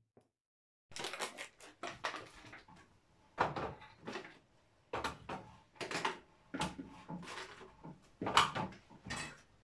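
Rummaging in a freezer: a quick series of plastic clicks, knocks and rustles as the plastic door bin and frozen packs are handled.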